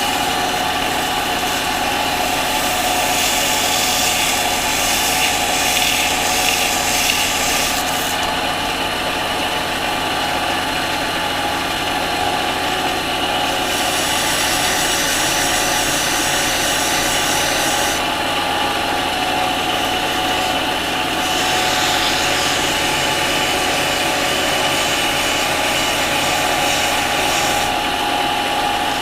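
Harbor Freight mini lathe running steadily with a motor whine, under a hiss from the work on the spinning shaft that comes and goes in stretches of a few seconds.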